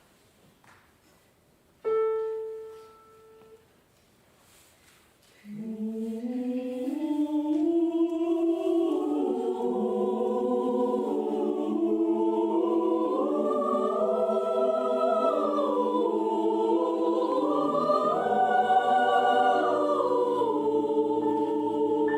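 A single struck note rings and fades, then a few seconds later a mixed choir starts singing in several parts, the voices moving up and down together. Lower voices join near the end.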